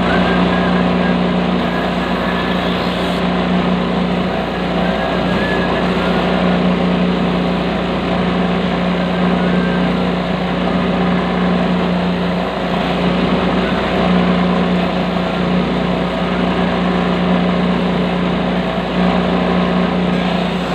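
Electric shoe-finishing machine running with a steady hum, its spinning sanding wheel grinding against the edge of a sandal sole that is held to it by hand.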